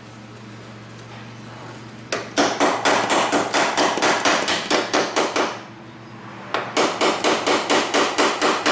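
Small hammer rapidly tapping the hinge pin into the center roller hinge of a 2009 Honda Odyssey sliding door, about six blows a second, driving the pin all the way through. The tapping starts about two seconds in and comes in two runs with a pause of about a second between.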